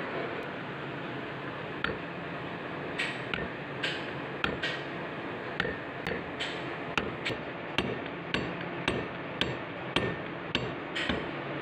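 Hammer tapping repeatedly on a rubber pad laid over the front plate of an automotive A/C compressor's magnetic clutch. There is one light blow, then a steady run of sharp taps at about two a second.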